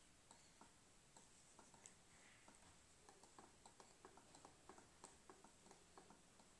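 Faint, irregular clicking of a child's fingers tapping the keys of a laptop keyboard, the taps coming quicker from about halfway through.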